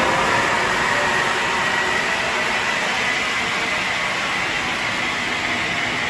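Ingersoll Rand 60 HP rotary screw air compressor running steadily, a dense mechanical rush with a thin high whine held over it.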